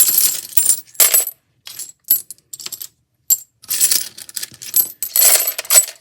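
Planner binder discs clattering and clinking against one another in irregular bursts as handfuls are dropped into a small toy vending machine.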